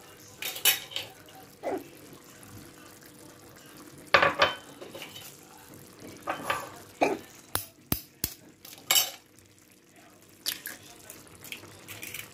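Eggs being cracked onto a ceramic plate amid utensil clinks: scattered taps, clinks and short scrapes, with a quick run of three sharp clicks a little past halfway.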